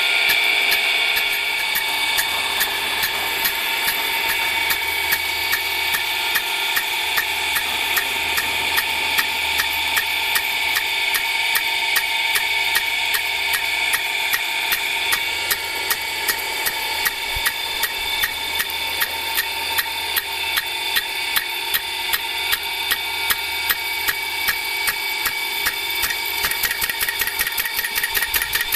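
A 2-inch rain gun sprinkler's swing arm clacking against the gun body in a regular rapid beat, about two to three strikes a second, over the steady hiss of the water jet. The strikes grow louder about halfway through and come faster near the end.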